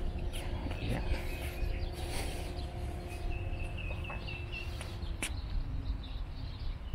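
Outdoor ambience: a steady low rumble with a faint steady hum that stops about five seconds in, and a short run of high bird chirps, about four a second, near the middle.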